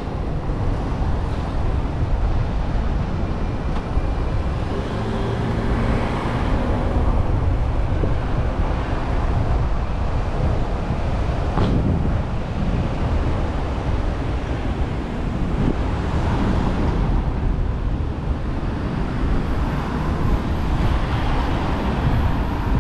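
City street ambience: steady road traffic noise with a low rumble, and a single short click about halfway through.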